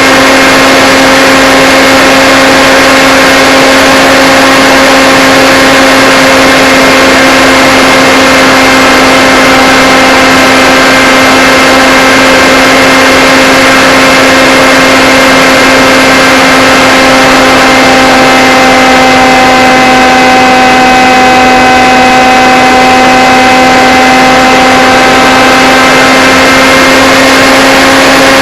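Electric motor and propeller of a Blade Theory Type W FPV aircraft in flight, a loud steady whine mixed with rushing air noise. The pitch shifts only slightly, and a second, higher tone joins for several seconds past the middle.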